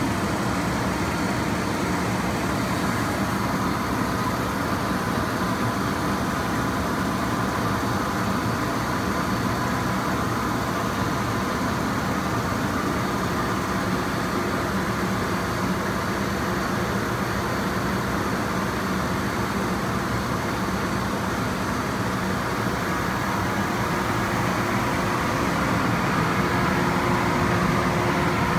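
Weeke Optimat Vantech 480 CNC router running: a steady mechanical whir and hum that grows slightly louder near the end.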